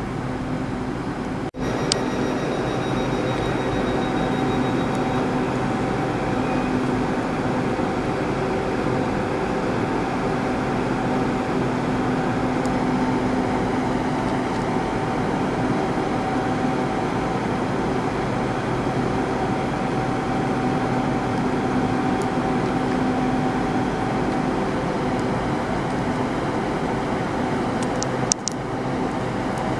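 Diesel train standing at a station platform with its engine idling: a steady hum with several held tones.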